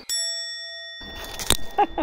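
A bright bell-like chime with several ringing overtones, added in editing, fades over about a second. A sharp click comes about a second and a half in, and a short high cry follows near the end.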